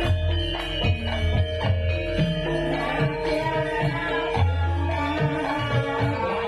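Javanese gamelan music: hand-drum (kendang) strokes in a steady rhythm over ringing metallophone tones and deep sustained gong tones.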